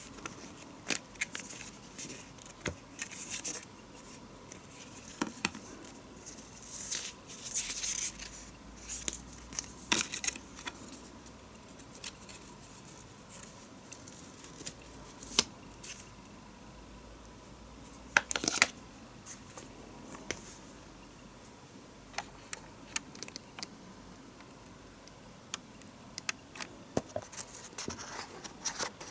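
Unboxing handling sounds: packaging and contents being handled, with scattered irregular clicks, scrapes and short rustles. The busiest stretch is about a third of the way in, and there is a sharper burst past the middle.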